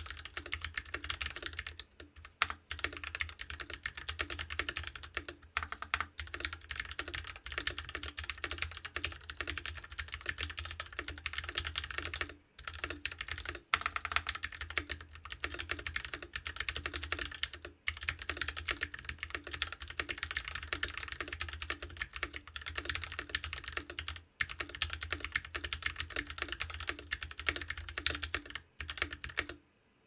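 Fast, continuous typing on a Keychron K6 mechanical keyboard modded with lubed Equalz Kiwi tactile switches, a foam-filled case and lubed, clipped and band-aided stabilisers: a dense stream of key presses broken by a few short pauses, stopping just before the end.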